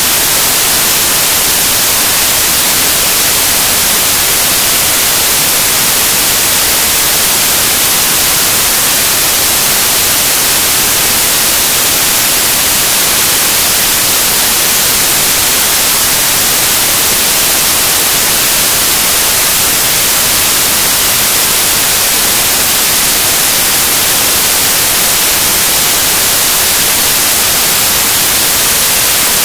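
Loud, steady static hiss, brightest in the high frequencies, with nothing else heard through it.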